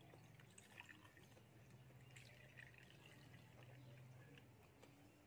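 Juice poured from a plastic bottle into a plastic cup, faint.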